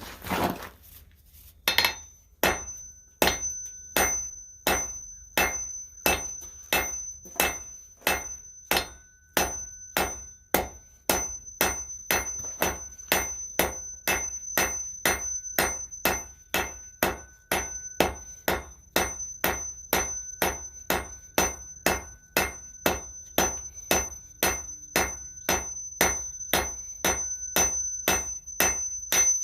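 Blacksmith's hand hammer striking steel on an anvil in a steady rhythm of about two blows a second, each blow leaving a high ringing tone, starting about two seconds in.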